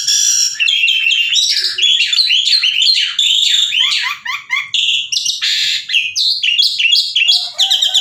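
Asian pied starling (jalak suren) singing a loud, unbroken stream of quick, varied whistles and chattering notes, many of them falling in pitch.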